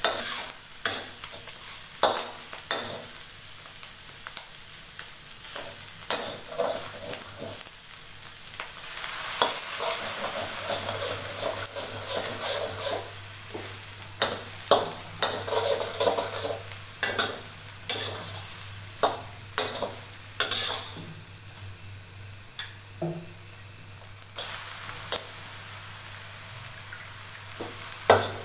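Metal spatula scraping and knocking irregularly against a wok while scrambled egg, garlic and onion sizzle in hot oil.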